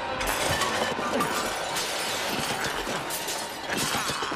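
Crockery and glassware being smashed: plates, cups and glasses breaking and clattering in a rapid, continuous run of crashes.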